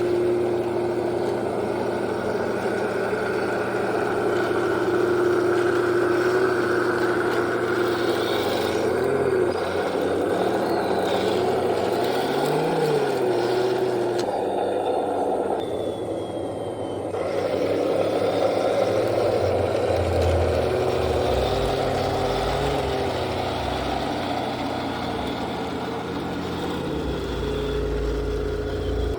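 Henglong T-72 remote-control tank running, its electric drive motors and metal gearboxes whining, pitch briefly rising and falling as it is driven, over a steady low rumble that grows stronger in the second half.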